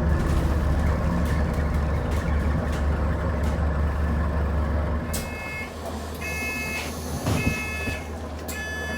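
Enviro400H hybrid double-decker bus drivetrain droning low, then dropping away about five seconds in as the bus comes to a halt. The door warning beeps then sound three times, about a second apart, followed by a higher tone near the end.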